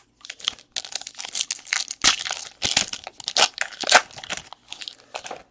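Trading-card pack wrapper being torn open and crinkled by hand, in a run of uneven crackling tears.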